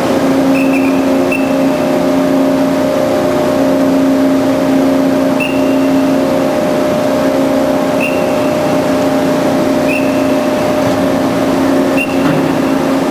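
Band saw running with a steady motor hum, broken several times by brief, short high-pitched tones.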